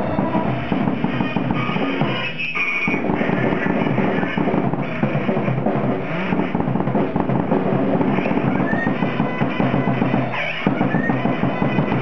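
Live band playing, led by a drum kit played continuously with kick and snare, with other instruments underneath; the drumming thins briefly twice.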